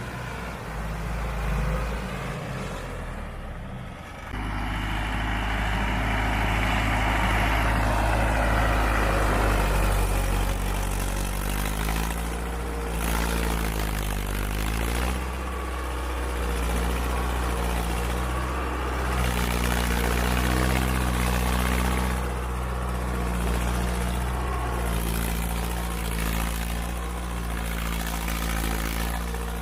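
Diesel farm tractor engine running steadily while pulling a trolley loaded with soil. Its pitch shifts up and down a few times around the middle. The sound changes abruptly about four seconds in.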